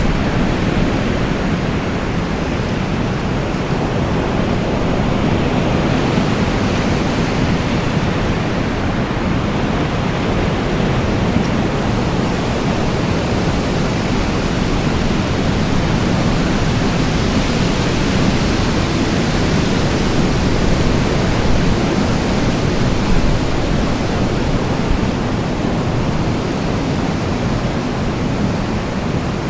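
Wind blowing steadily with a deep rumble and a hiss, slowly swelling and easing.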